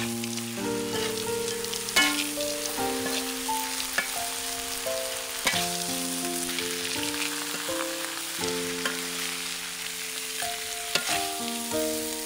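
Oil sizzling in a metal wok as basil, roasted peanuts and red chilies are stir-fried, with a few sharp clinks of the utensil against the pan. A background music melody of held notes plays over it.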